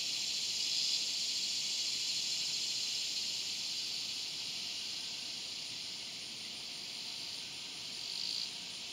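Swamp cicada (Neotibicen tibicen) calling: a continuous harsh, high-pitched buzz. It eases slightly in loudness through the middle and swells again near the end.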